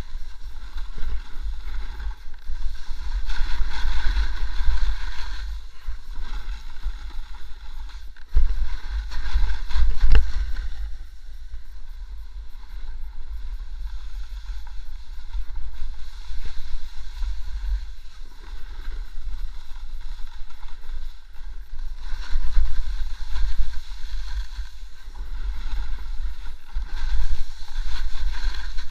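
Wind rumbling on an action camera's microphone as a rider descends a snow slope, with the hiss and scrape of edges sliding over snow that swells and fades several times. A sharp knock comes about ten seconds in.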